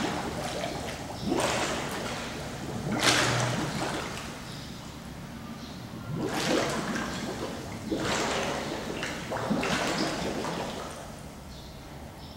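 Scuba diver's double-hose regulator releasing exhaled air bubbles, heard underwater as about five separate bubbling rushes a second or so each, with a low hiss between them.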